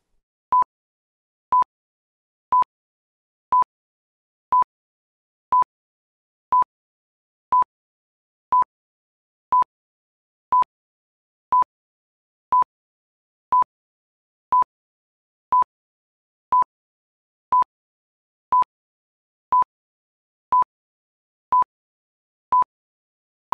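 Countdown timer beeping: a short, same-pitched beep once every second, with silence between the beeps, each beep ticking off one second of the countdown.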